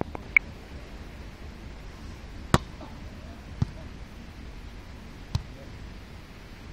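A volleyball being struck again and again in a game on sand: a series of sharp, separate hits, the loudest near the start and about two and a half seconds in, over a steady low background noise.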